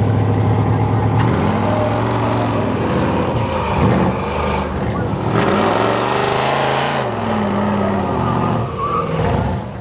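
Pickup truck engines revving hard under full load as the trucks strain against each other in a tug-of-war. The engine pitch rises and falls twice, with a rush of noise in the middle of the second pull.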